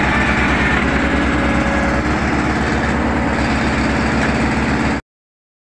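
Heavy diesel engines idling with a steady, evenly pulsing low chug. The sound stops abruptly about five seconds in.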